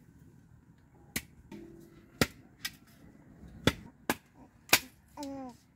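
Sharp wooden knocks and cracks at irregular intervals, about six in all, a few of them loud: wood being struck by hand.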